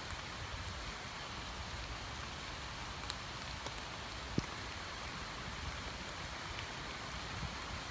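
Steady rain falling on open water, an even hiss of many drops, with a few separate ticks of single drops and one sharper tick a little after four seconds in.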